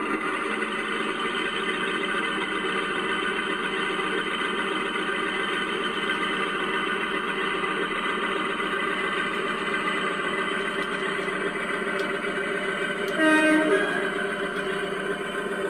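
Zimo sound decoder in a Heljan O gauge Class 52 Western model locomotive playing the diesel engine sound steadily through its small onboard speakers as the model runs, with a short horn blast near the end.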